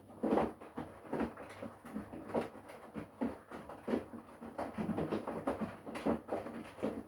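Front-loading washing machine drum turning wet laundry, with uneven sloshing and soft thuds several times a second, starting suddenly after near silence.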